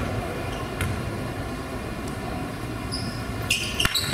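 Basketball gym ambience: a steady murmur of the crowd and players, with a couple of sharp ball bounces on the hardwood early on. Near the end, sneakers squeak several times as the players run.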